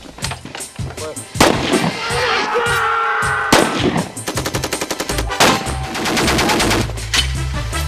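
Automatic gunfire: bursts of rapid shots in quick succession, with several heavier single shots standing out among them.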